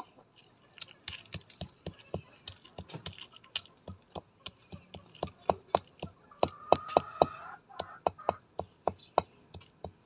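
Chickens pecking at crumbled feed on hard dirt ground: sharp, irregular beak taps, several a second, loudest around the middle. A brief drawn-out call rises over them about two-thirds of the way through.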